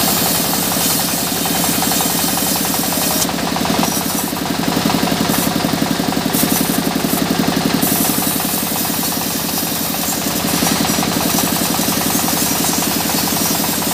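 Sawmill saw running with a steady, fast-pulsing drone, cutting mahogany timber; a harsher hiss joins it from about three seconds in until about eight seconds in.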